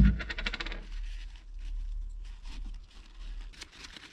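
A plastic bottle set down on the workbench with a knock and a quick run of ticks, then the scratchy rustle of an alcohol-dampened wipe scrubbing a small circuit board clean.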